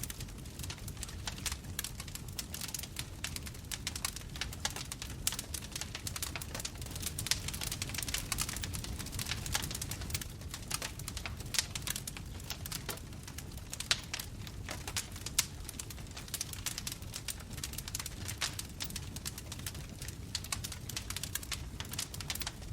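Bonfire burning, with dense irregular crackling over a low rumble of the flames and a few louder pops.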